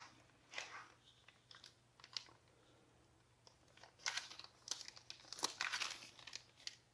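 Plastic poly mailer crinkling and rustling as it is handled, in irregular bursts that are busiest in the second half.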